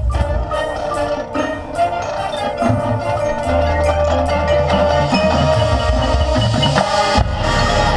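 Marching band music with ringing mallet percussion (marimba, xylophone and bells) over held chords and a low bass note, with a sharp percussion hit near the end.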